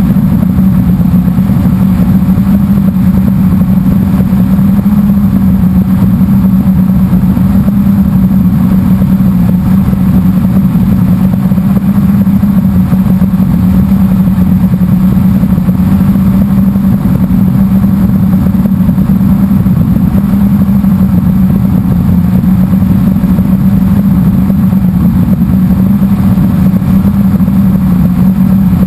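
Blade 350 QX quadcopter's four brushless motors and propellers in flight, a loud steady hum heard close up from the onboard camera, its pitch wavering slightly as the throttle changes, over a rumble of wind on the microphone.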